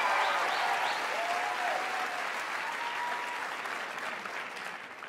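Studio audience applauding, with a few voices over it at first, the clapping dying away toward the end.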